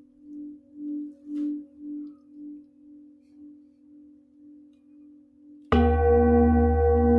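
Large bronze singing bowl humming with a slow wobble of about two pulses a second, swelling and then fading away. About six seconds in, a sudden much louder metal strike rings out with several tones at once and keeps ringing.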